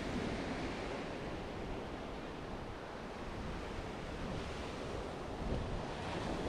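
Ocean surf breaking and washing up the beach in a steady wash, with wind rumbling on the microphone.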